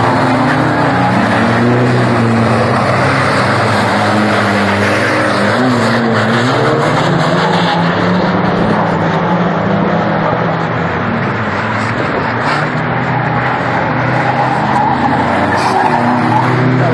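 Several banger-racing cars' engines revving hard together, their pitches rising and falling over one another above a continuous rush of exhaust and tyre noise.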